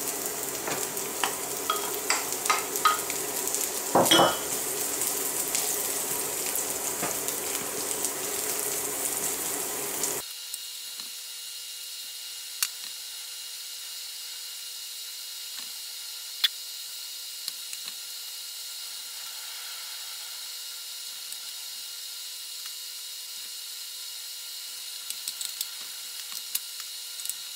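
Chopped onion and garlic frying in sunflower oil in a pan, sizzling, with a wooden spoon clicking and scraping against the pan as they are stirred. About ten seconds in, the sound drops abruptly to a quieter, thinner sizzle with only occasional taps.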